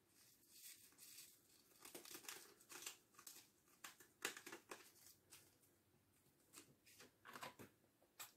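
Faint crinkling and rustling of small plastic bags of diamond-painting drills being picked up and handled: a run of short crinkles from about two seconds in until near the end.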